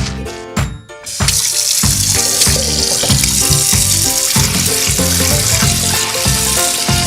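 Background music with a steady beat; about a second in, a steady rush of running water starts and continues under it.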